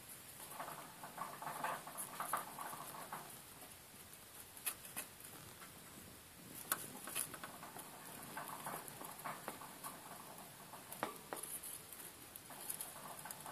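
Young mice shifting and scratching in hay bedding: soft rustling in short bouts, with a few sharp little clicks scattered through.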